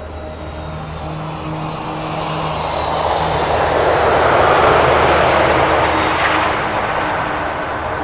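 Twin-engine jet airliner taking off: rushing jet engine noise that swells to its loudest about halfway through, then fades as the aircraft passes and climbs away.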